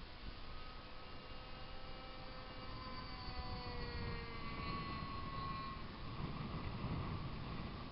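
Radio-controlled model airplane motors whining high overhead, their pitch gliding slowly down as they fly past, over low wind rumble on the microphone.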